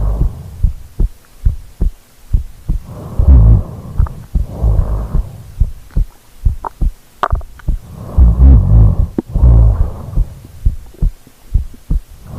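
A sleeping woman's heartbeat picked up at close range on the microphone as a steady run of short low thumps. Over it come two slow, deep breaths, in and out, with a low snore, about 3 and 8 seconds in; these are the loudest sounds.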